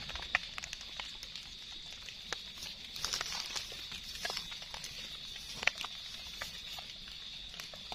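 Scattered soft scrapes and clicks of a small knife trimming soil off the base of freshly dug ra-ngok (Amanita) mushrooms and fingers working through loose soil and dry leaf litter, one sharper click about two-thirds through. A faint steady high-pitched drone runs underneath.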